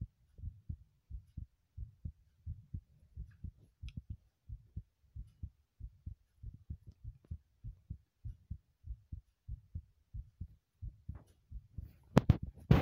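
Heartbeat: a steady, even rhythm of low, dull thuds. Near the end a brief, louder burst of noise breaks in over the beats.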